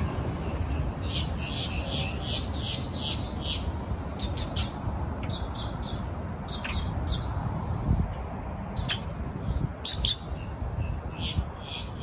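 A grackle calling: a run of short, harsh notes about four a second, then scattered single notes, and another quick run near the end, over steady low background noise.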